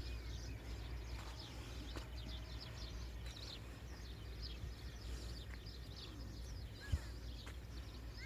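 Small birds chirping all around in many short, high notes, over a steady low rumble of wind on the microphone. A single thump sounds about seven seconds in.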